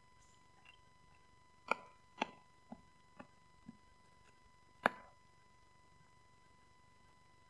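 Husky chewing a rawhide-style bone: a run of five sharp crunches about half a second apart, getting quieter, then one loud crunch about five seconds in.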